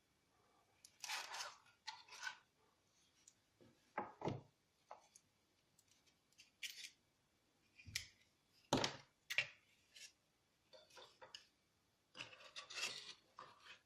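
Hands handling packaging and small items, making irregular rustles and scrapes with a few soft knocks.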